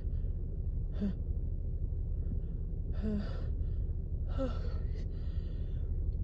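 A woman with a head cold takes several short, breathy gasping in-breaths and sighs as a sneeze builds, a few with a brief rising 'ah'. The sneeze does not come inside this stretch.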